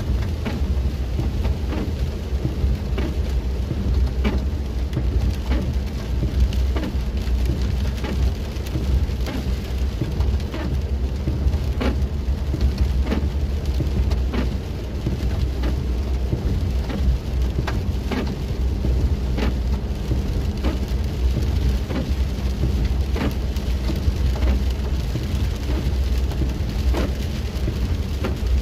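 Rain striking a moving vehicle's windshield and roof, heard from inside the cab as scattered irregular clicks, over a steady low rumble from the engine and the tyres on the wet road.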